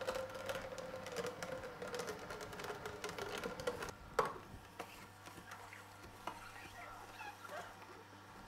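Horizontal slow juicer running: a steady low motor hum with fine crackling as the auger grinds blended rose hip pulp, the tiny seed particles being crushed, and a sharper knock about four seconds in.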